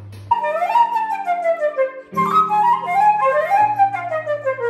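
Concert flute playing a melody of rising and falling phrases over held piano chords, starting suddenly about a third of a second in.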